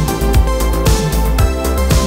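Upbeat electronic end-screen music with a steady beat, about two beats a second.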